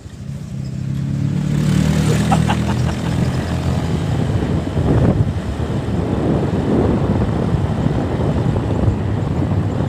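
Motorcycle engine picking up speed over the first couple of seconds, then running steadily with a dense rush of wind and road noise.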